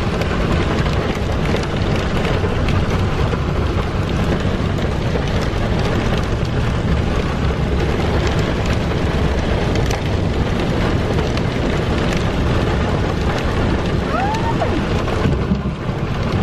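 Heavy rain pouring steadily, a dense, unbroken hiss with a deep rumbling low end.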